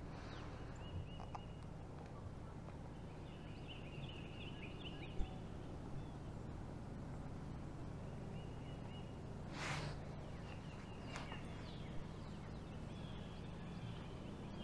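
Faint bird calls: short rapid runs of chirps, three times over, above a low steady hum. A light knock comes about five seconds in, and a brief rushing noise near ten seconds.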